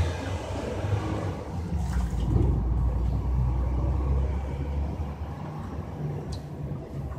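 Pigeons bathing in a shallow metal tray of water: light splashing and a couple of sharp clicks, about two seconds in and again near the end, over a steady low rumble.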